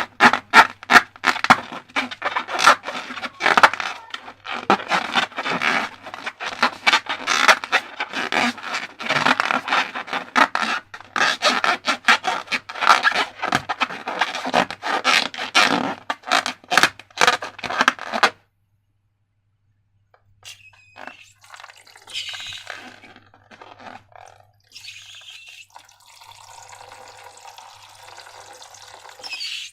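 Slime being squished and worked by hand: dense, rapid wet clicks and crackles. After a brief dead silence about two-thirds of the way in, softer liquid sounds follow.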